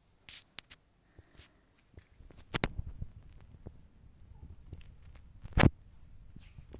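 Hands handling a paper booklet and a plush toy on a wooden table. There are a few light clicks and a soft rustle, then a low rumble of hand movement with two sharp knocks about three seconds apart, the second the loudest.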